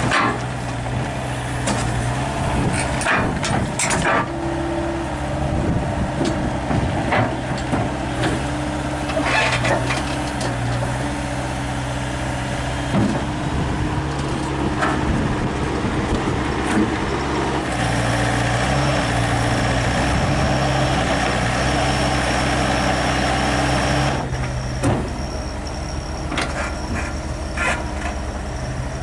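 Mini excavator's diesel engine working as the machine climbs steel ramps onto a low-bed trailer deck. Its engine speed steps up and down, and it runs louder for several seconds past the middle. Sharp metal clanks from the steel tracks on the ramps and deck come through in the first half.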